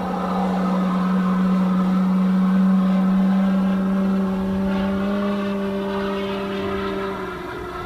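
Electric-powered radio-controlled P-47 model in flight: a steady droning note from its 24x12 propeller and electric motor, with its onboard RealSound R2800 radial-engine sound system. The note drops a little and fades slightly near the end.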